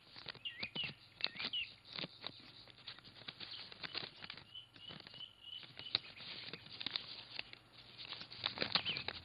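Faint paper rustling and crackling as a letter's envelope is handled and opened, with birds chirping now and then in the background.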